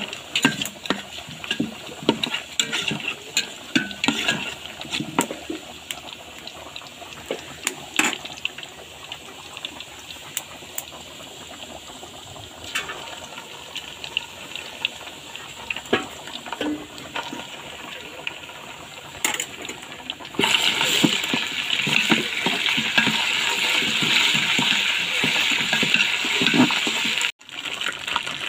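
Liquid in a metal cooking pot with scattered clicks and knocks of a utensil against the pot; about two-thirds of the way through, a steady, louder hiss of bubbling liquid takes over.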